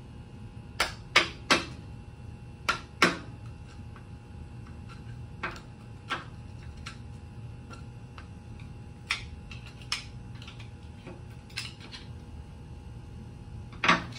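Irregular sharp metallic clanks and taps of a hand tool worked against the bottom of a steel safe door, some in quick clusters of two or three, the loudest near the end.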